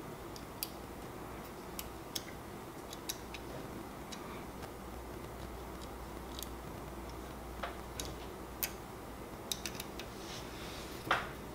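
Light, scattered clicks and taps of plastic and metal as fingers handle the side cooling fan on a 3D printer's hotend carriage, with the sharpest click about eleven seconds in, over a steady low hum.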